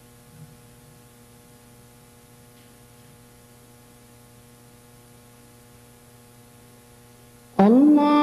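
Steady electrical mains hum from the sound system in a pause of the adhan. About seven and a half seconds in, the muezzin's amplified voice starts the next phrase of the call to prayer: a loud, long sung note that slides up in pitch and is then held.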